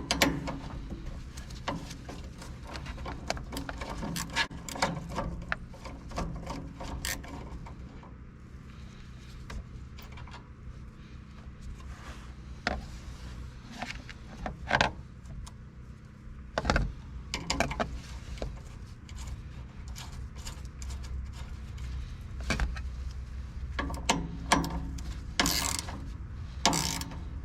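Hand tools at work fastening a ground wire to a tractor's metal frame: irregular metal clicks, taps and clanks, some spaced seconds apart.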